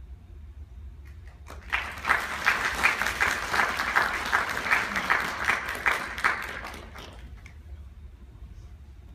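Audience clapping that starts about one and a half seconds in, holds for about five seconds and dies away, with individual claps standing out. A steady low hum runs underneath.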